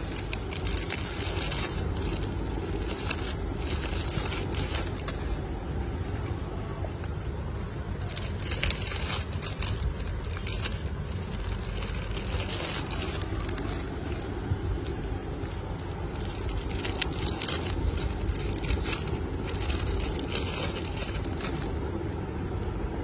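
Clear plastic bags crinkling and rustling in several spells of a second or two as children's clogs are handled and packed into them, over a steady low rumble.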